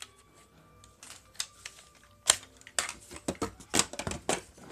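Plastic clicks and rattles from a Nerf Zombie Strike crossbow blaster being handled, a string of short sharp clicks starting about two seconds in.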